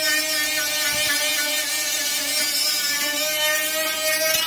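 Cordless drill running steadily with its bit worked against the steel lip of a car's rear wheel arch: a constant motor whine with a hiss of metal being abraded.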